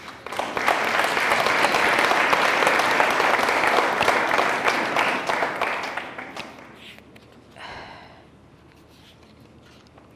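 Audience applauding in a hall: clapping starts about half a second in, holds steady for about five seconds, then dies away over the next second or two. A brief voice is heard near the end.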